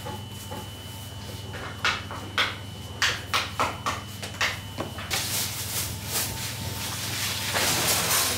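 Light taps and knocks of hands pressing and spreading minced-meat filling onto flatbread dough on a marble counter, over a steady machine hum. From about five seconds in, a loud hiss builds and is loudest near the end.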